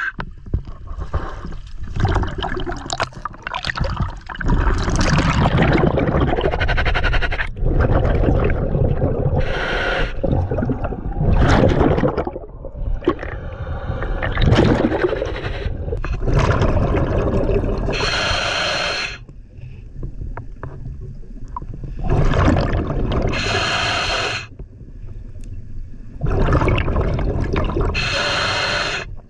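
Diver breathing underwater through a scuba regulator: hissing breaths and gurgling, rumbling exhaust bubbles, the breaths coming about every four seconds in the second half.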